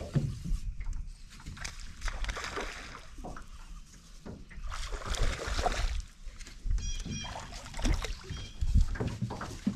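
Water splashing and sloshing as a hooked bass is fought up to the side of a boat, with scattered low thumps and knocks from the boat.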